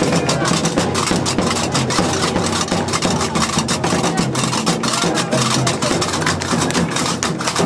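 Gnawa music: iron qraqeb castanets clattering in a fast, even rhythm over a steady low bass, with the crowd clapping along.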